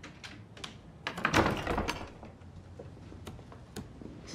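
A door being pushed open hard, a loud thud and rattle about a second in that lasts about a second, followed by a few sharp clicks.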